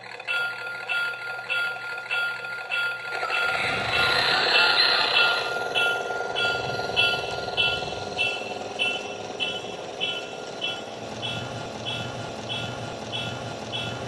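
Toy train locomotive's sound system ringing its bell, evenly repeated high rings over a steady tone. This is a Lionel LionChief Hot Wheels GP38 diesel. A low rumble of the motor and the wheels on the track comes in a few seconds in as the train gets moving.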